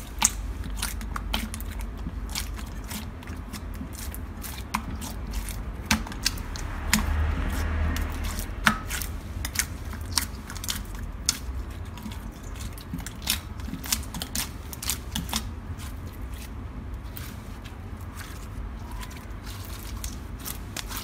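Hands kneading and squeezing a sticky slime in a glass bowl: irregular wet clicks and pops as the slime, still slightly sticky, pulls off the fingers, with a brief louder squish about seven seconds in.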